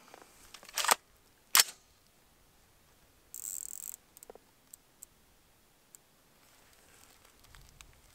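Handling noise from a scoped AR-15 on a tripod and the shooter's gear: a short rustle about a second in, then a sharp click, a brief hiss near the middle, and a few faint clicks as his hand works the scope's top turret.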